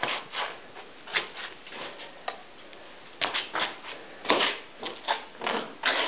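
A puppy playing with a slipper: irregular short scuffs, scratches and taps, some louder ones in the second half.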